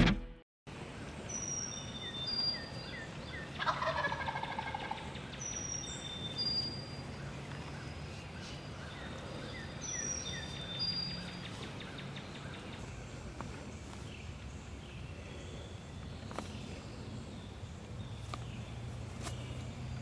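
Wild turkey gobbling about four seconds in, a rapid call falling in pitch. Songbirds sing high, thin repeated notes around it.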